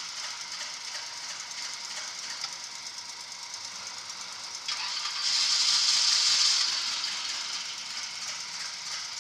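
A car engine running out of sight, rising to a louder swell about five seconds in that lasts about a second and a half before easing back.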